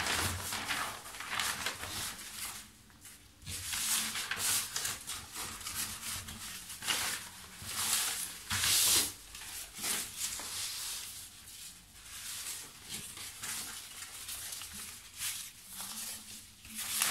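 Sheets of paper and card pattern pieces rustling and crinkling as they are handled, laid out and smoothed on a tabletop, in irregular bursts.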